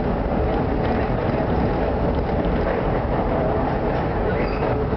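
Vintage IRT Lo-V subway car running through a tunnel, heard from inside the car: a steady rumble of wheels on rails and running gear, with a few light clicks.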